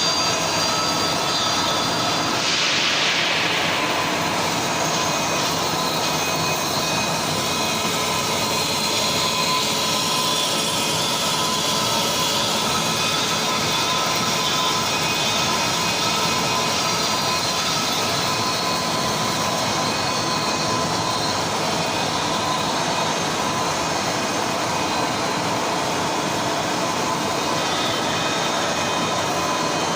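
CNC lathe running during a keyway-cutting (slotting) operation: a steady machine drone with several steady high tones, and a brief hiss about two to four seconds in.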